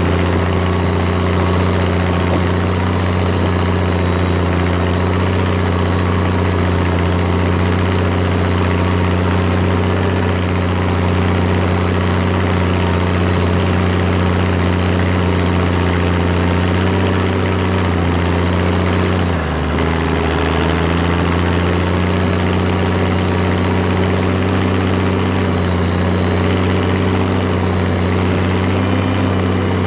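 Valtra BH180 tractor's diesel engine with a straight-pipe exhaust, running steadily while pulling a trailer. About twenty seconds in, the engine note dips briefly and drops in pitch, then settles back to its steady run.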